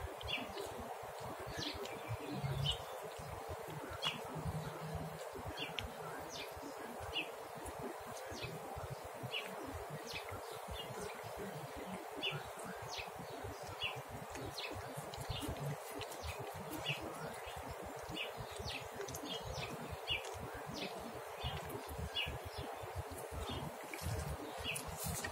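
Outdoor ambience: short, high chirps repeat at a steady pace of roughly one every second or less, over a steady background hiss.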